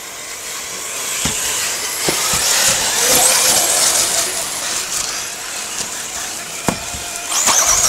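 Radio-controlled off-road buggies running past on a dirt track, their small high-revving motors swelling in loudness about three seconds in and again near the end, with a few sharp knocks.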